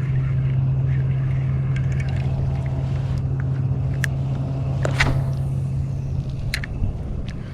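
Boat motor running steadily with a low, even hum, dying away about six seconds in. A few sharp clicks sound over it.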